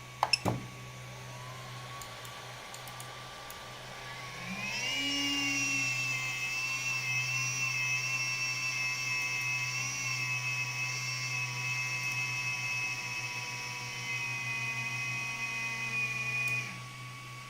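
Voxelab 3D printer making a high-pitched whine that its owner finds strange. A few sharp clicks come near the start. About four seconds in, a whine rises and settles into a steady tone for about twelve seconds, then cuts off shortly before the end, all over a steady low hum.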